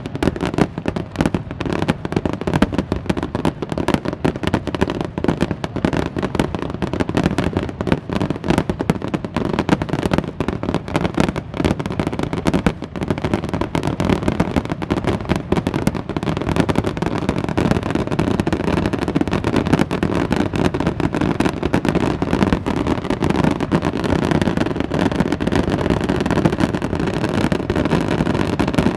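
Aerial fireworks going off in a continuous barrage of dense, rapid crackling and popping. About halfway through, the crackle blends into a steadier rumble.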